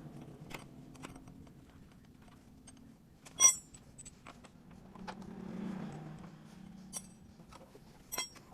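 Scattered light metallic clicks and clinks of tools and engine parts being handled, the loudest about three and a half seconds in, with a soft rustle around five to six and a half seconds in.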